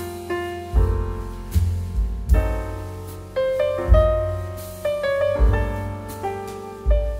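Background instrumental music on piano: chords struck and left to ring, over deep bass notes.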